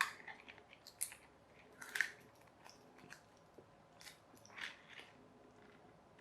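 Scattered small clicks and scratchy scrapes of a screwdriver working at the screws of a small plastic RC car, a few sharper clicks standing out among softer rasping.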